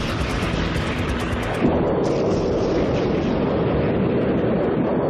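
Continuous rumbling roar of 30 mm cannon rounds striking and exploding around a target tank. About a second and a half in it turns deeper and a little louder.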